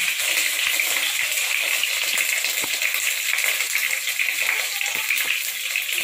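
Bay leaves and curry leaves frying in hot oil: a steady crackling sizzle with small pops.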